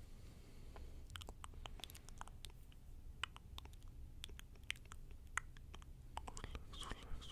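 Close-up ASMR trigger sounds: soft, irregular clicks and crackles close to the microphone, a few each second, with a faint breathy sound near the end.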